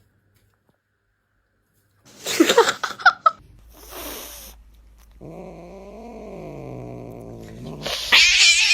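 A cat vocalising: after about two seconds of silence come short cries, then a long low yowl whose pitch rises and falls, and a loud shrill wavering cry near the end.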